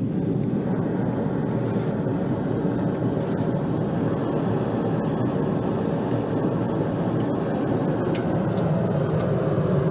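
Forge running with a steady rushing noise at full heat, door shut, bringing the fluxed steel up to white welding heat.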